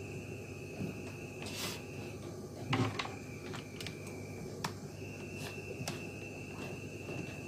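Hands handling a capacitor and multimeter test leads on a cutting mat: a rustle, then a knock about three seconds in, followed by several sharp clicks as the alligator clip and probe tips are moved and touched to the capacitor terminals. A steady high-pitched tone runs behind it and drops out twice.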